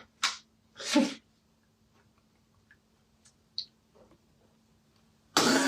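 A person's breathy noises: two short quick breaths about a second apart, then a loud rush of breath near the end.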